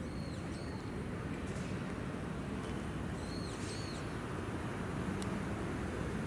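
Small birds chirping in short, high calls over steady outdoor background noise. There are a couple of calls near the start and a quick cluster about three seconds in.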